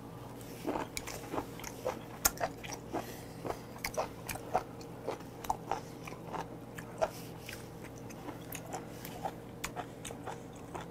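A man chewing a mouthful of raw beef close to the microphone: wet chewing clicks and smacks, two or three a second, starting about a second in and going on to near the end. A faint steady hum lies underneath.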